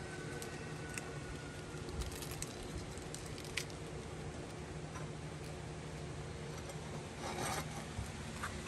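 Light handling sounds of a sandwich being put together: lettuce and a soft bun top set on a plate and pressed down. There are a few small clicks, a brief rustle near the end, and a steady low hum underneath.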